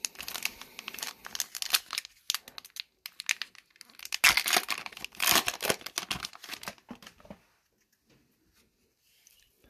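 A hockey card pack's plastic foil wrapper (2021-22 Upper Deck Extended Series) being torn open and crinkled, crackling in uneven bursts that are loudest about four to six seconds in and stop near the end.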